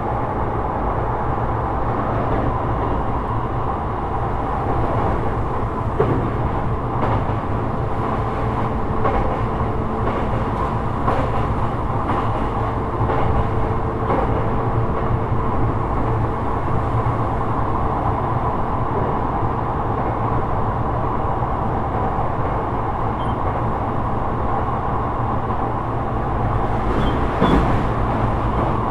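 Sotetsu 12000 series electric train running at speed: a steady rumble of wheels on rail with scattered clicks and knocks, a cluster of them near the end.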